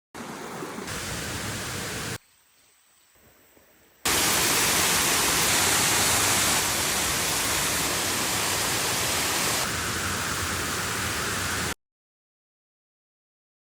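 Steady rushing roar of a waterfall, heard across a string of hard-cut clips: moderate at first, nearly gone for about two seconds, then loud and even from about four seconds in, until it cuts off abruptly near the end.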